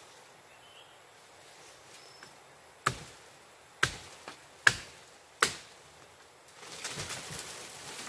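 A machete chopping into wood with four sharp strokes, a little under a second apart, about three to five seconds in. A rustle of leaves and branches follows.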